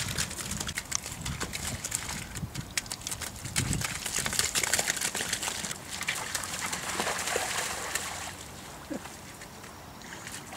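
White lion cubs scrambling and wrestling in wet mud and shallow flood water: squelching, splashing and scuffling, with a few short calls from the lions. The scuffling grows quieter about eight seconds in.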